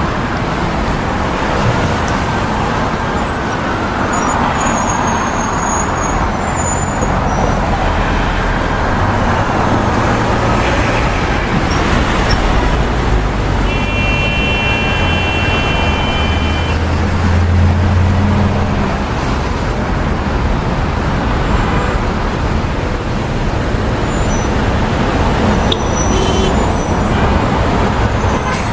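Busy city street traffic: a steady wash of passing cars, with the deeper engine rumble of a heavy vehicle swelling and fading past around the middle. A held high-pitched tone sounds for about two and a half seconds at the same point.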